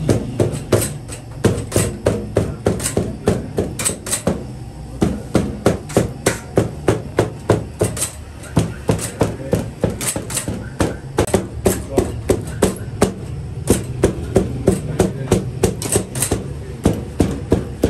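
Quick, regular knocks of a small white docking tool stabbed through barbari dough onto the floured board as it presses in the grooves, about three a second, over a low steady hum.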